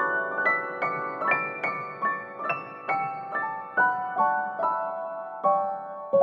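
Background music: a gentle piano-like melody of single struck notes, about two to three a second, each ringing and fading before the next.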